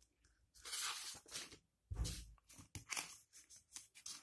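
Sheets of handwritten paper being handled and turned, rustling and crinkling in several short, irregular bursts, with a soft bump about two seconds in.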